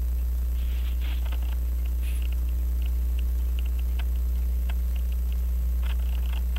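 Steady low hum with a few faint scattered clicks.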